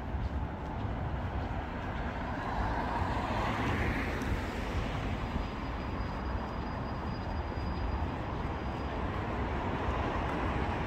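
City street traffic noise: a steady low rumble, with a vehicle passing close by that swells and fades about three to four seconds in.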